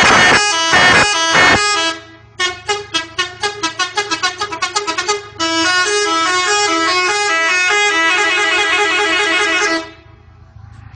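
Air horn fitted to a Fiat Tempra sounding. A few harsh blasts come in the first two seconds, then a fast run of short notes at changing pitches, then held notes stepping from pitch to pitch. It stops shortly before the end.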